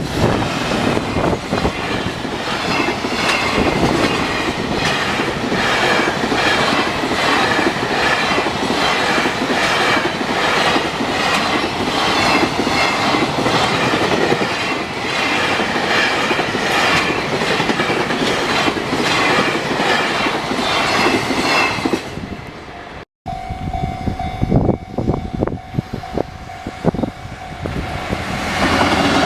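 Long freight train passing over a level crossing, wheels clacking over the rail joints, with the crossing's warning bell ringing in a steady repeating beat. After a brief break about three-quarters of the way through, the wheels clatter on more sparsely under a steady hum.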